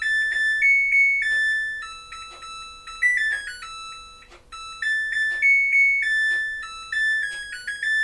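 Samsung top-load washing machine's electronic beeper playing its jingle: a melody of high, pure beeped notes, the same phrase played twice.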